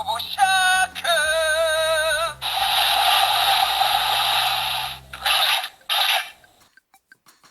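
Electronic sound effects from a Zyuohger transformation toy: a warbling synthesized tone, then a long hissing blast and two short bursts. After it stops, a run of small faint clicks near the end.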